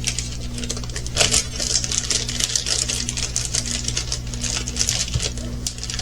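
Small resin diamond-painting drills rattling in their plastic bags as the bags are handled, a rapid, irregular clicking and crinkling over a steady low hum.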